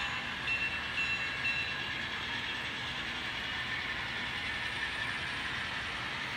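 HO-scale model trains running along the track: a steady whir of wheels and motor gearing with light mechanical clicking. Three short high tones sound about half a second apart near the start.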